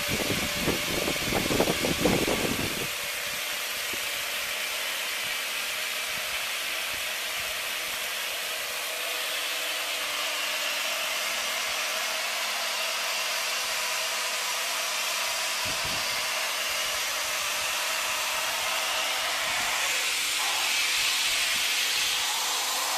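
Hot air welding machine blowing hot air through its nozzle with a steady hiss and a faint steady hum under it. Low rumbling knocks sound for the first few seconds, then only the hiss remains.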